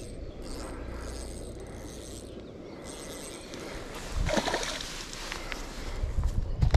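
Landing net grabbed off the grass bank about four seconds in, a sudden rustling scrape, over a low steady rumble, with a few low thumps near the end.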